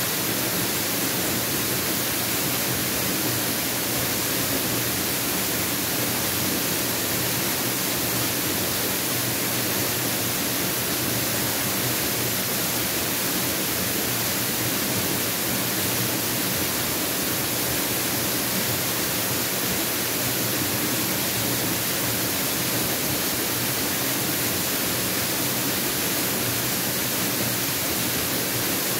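Mountain waterfall pouring, a constant, even rush of water that stays steady throughout.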